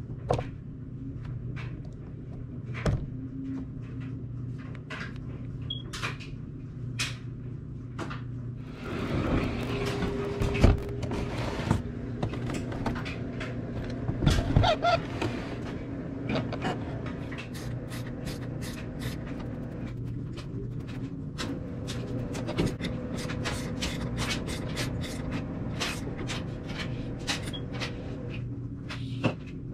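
Small hex drivers and metal shock parts clicking and clattering as the shocks are unbolted from a Losi 8ight nitro RC buggy. A steady low hum runs underneath. A louder burst of handling comes about ten seconds in, and a quick run of light ticks follows from about twenty seconds in.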